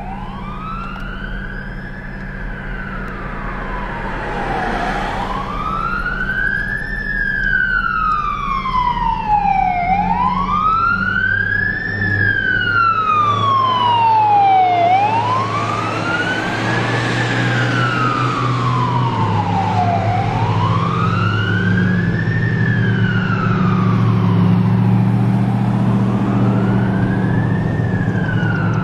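Siren on a 1994 Dodge Ram brush truck sounding a slow wail, rising and falling about every five seconds, over a low engine rumble.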